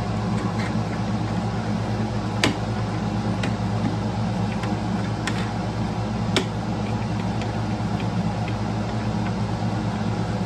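Steady low mechanical hum, like a shop fan or air conditioner, with scattered light clicks and two sharper knocks about two and a half and six and a half seconds in, from the scale and rod-balancing fixture being handled and set up.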